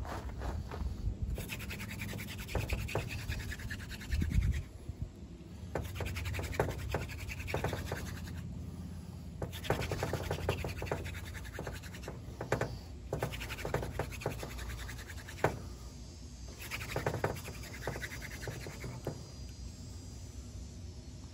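Friction fire hand drill: a wooden spindle spun between the palms, grinding in a notched fireboard divot. It makes a dry scratching in runs of a few seconds, about six, with short breaks between them. The drilling is building up an ember.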